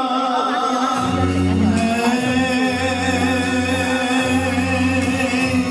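Music from the song's accompaniment between sung lines, with sustained melody notes; a low bass line comes in about a second in.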